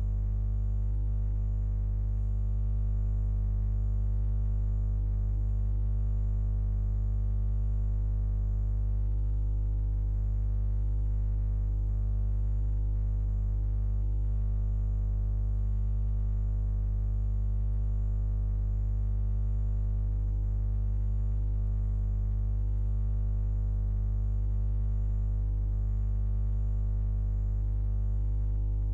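Background music: a steady, unchanging low drone, loudest in its deepest notes.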